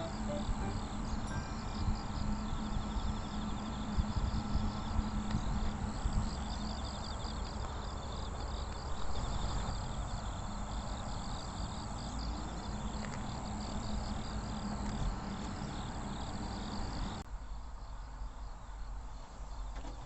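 Insects chirping in a rapid, evenly repeating pattern over a low steady hum; the sound changes abruptly about three seconds before the end.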